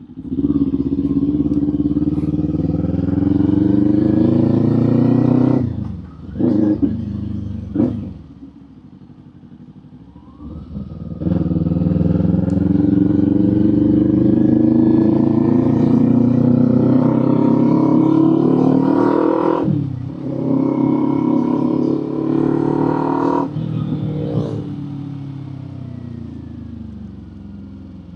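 Kawasaki Z400 parallel-twin motorcycle engine and exhaust accelerating through the gears, pitch climbing with each pull. The throttle snaps shut partway with a few short blips, then come a long rising pull and a shorter one, and it eases off to a fading, falling-pitch run at the end.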